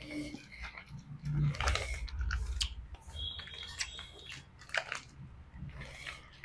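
Close-miked chewing and mouth sounds of someone eating thinly sliced dipped beef, with scattered small clicks.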